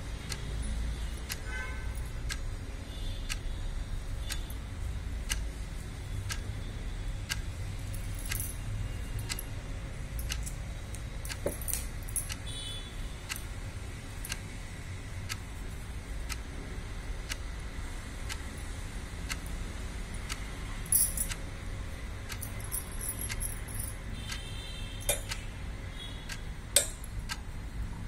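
Glass bangles clinking now and then on the wrists of hands crocheting, a few bright jingles standing out, over a steady low hum and faint, evenly spaced ticking.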